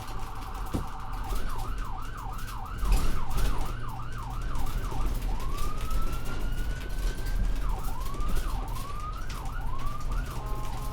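Ambulance electronic siren cycling through its patterns: a fast warble at the start, then quick rising-and-falling yelp sweeps, a single long slow rising wail around the middle, and quick sweeps again near the end. A low steady rumble runs underneath.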